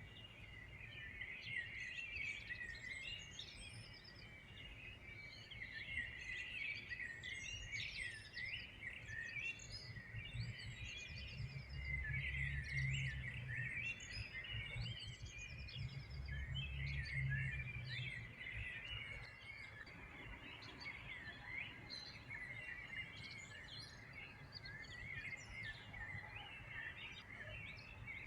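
A dense chorus of many small birds chirping and trilling over one another without pause. A low rumble swells in the middle and fades again.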